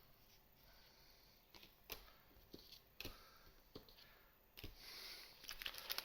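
Near silence with faint, scattered taps and light rustling of trading cards and a foil booster pack being handled, the rustling growing a little near the end.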